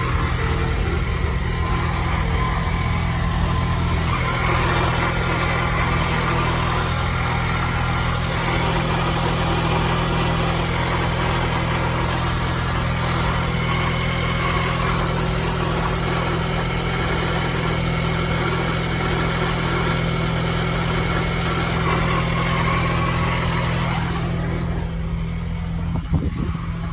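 2022 Ford Bronco Badlands with the seven-speed manual gearbox running steadily, its engine sound mixed with the grinding noise the owner is documenting from the drivetrain. The hiss in the upper range falls away near the end.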